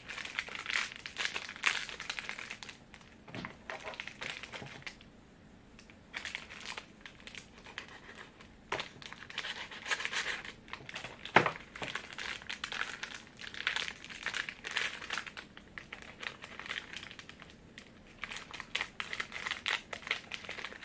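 Crinkly plastic wrapper of a tube-shaped Bourbon Petit snack packet being crumpled and torn open by hand, in irregular spurts. There is one sharp click about halfway through.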